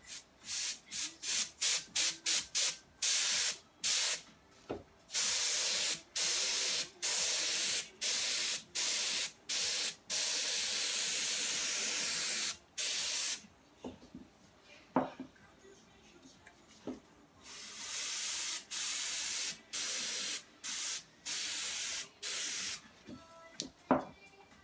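Can of compressed air fired through its thin red straw in many short hissing bursts, blowing wet alcohol ink across the canvas; one blast about halfway through lasts a couple of seconds, then a pause, then another run of short bursts. A few light knocks, with a sharp tap near the end.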